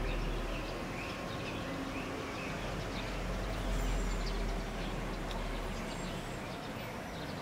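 Outdoor ambience: small birds chirping again and again over a steady low rumble.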